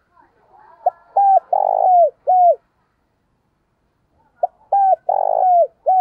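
Spotted dove cooing twice. Each call starts with a short note, then runs into a string of longer coos that fall away at their ends, and the second call follows about three seconds after the first.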